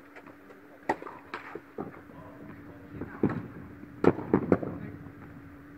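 Tennis rally in an indoor tennis hall: a series of sharp ball strikes and bounces, then a louder cluster of thumps and shoe scuffs about three to four and a half seconds in, as a player lunges for a wide ball.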